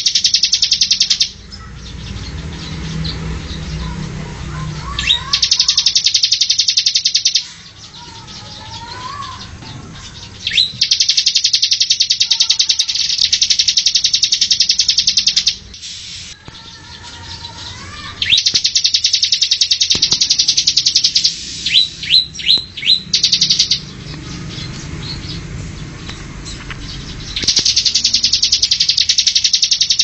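Recorded songs of several small songbirds edited together as a bird-training track. Loud stretches of very fast, high trills alternate with quieter passages of softer chirps and warbles, and a quick run of sharp, loud chirps comes a little past two-thirds of the way through.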